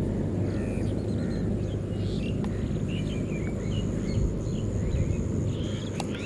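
Open-air pond-side ambience: many short bird chirps scattered throughout, over a steady low rumble and a thin, steady high-pitched whine.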